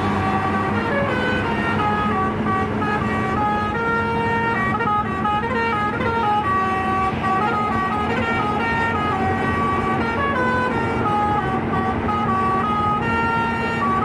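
Basuri telolet horn on a coach playing a continuous melody of short, quickly changing notes, over engine and road noise.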